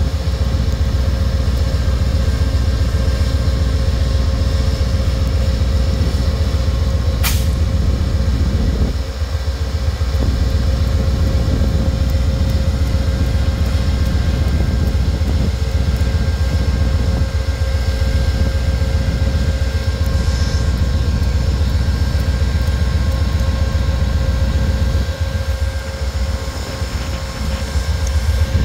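Amtrak GE Genesis diesel-electric locomotive standing and running, a steady deep engine rumble with a steady whine over it. One sharp click about seven seconds in.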